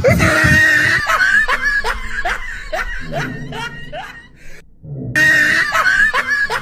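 A man laughing hard in high, squealing laughter, in quick repeated 'hee' sounds at about three a second, his reaction to the sourness of the green mango he is eating. It cuts out briefly a little past the middle, then starts again with a squeal.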